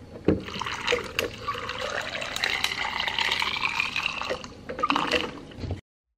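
Water pouring from a plastic pitcher into a cup, with the pitch of the filling rising slightly as the cup fills. It stops suddenly near the end.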